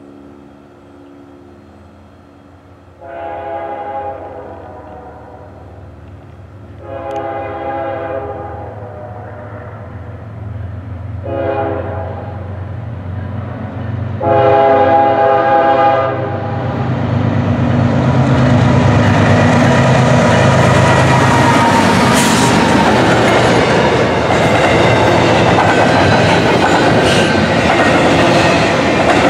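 Diesel freight locomotive horn sounding the grade-crossing signal, long, long, short, long, each blast louder as the train nears. The locomotives then pass with a low engine rumble, followed by the steady clatter of double-stack container cars rolling over the rails.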